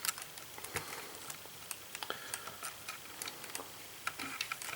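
Irregular light clicks and taps of hard plastic as a Masters of the Universe Origins action figure and its Stridor mount are handled and fitted together.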